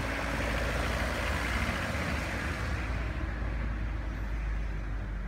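A car driving past on the paved street, its engine and tyre noise swelling and then fading away from about three seconds in, over a steady low rumble.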